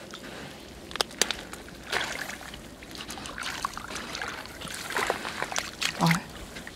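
Shallow muddy water sloshing and trickling as a person wades and gropes in it with bare hands, lifting a crab out with water dripping off it. Scattered sharp splashes stand out, the loudest about a second in and near the end.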